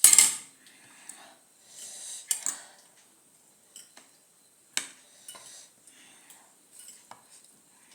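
Eating utensils clinking against dishes in scattered light clicks during a meal, after a short loud rush of noise at the very start.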